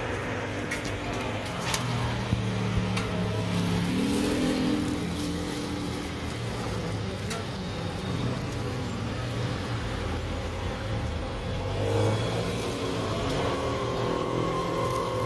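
Road traffic running close by: vehicle engines humming, with one revving up about four seconds in and another near the end, and a few light clicks.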